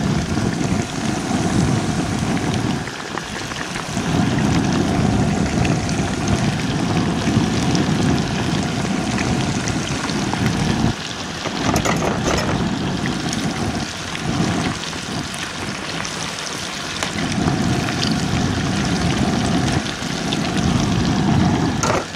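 Cornmeal-coated white perch deep frying in hot grease, with a steady sizzling and bubbling of the oil. A low rumble comes and goes underneath.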